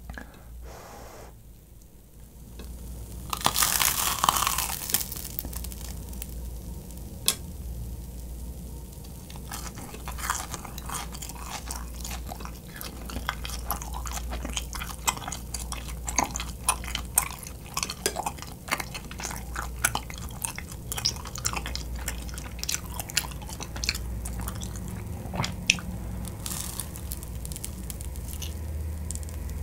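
Close-miked biting and chewing of grilled kirimochi rice cake eaten plain: crunching on the toasted crust, then steady chewing with many small mouth clicks. The loudest part is about four seconds in.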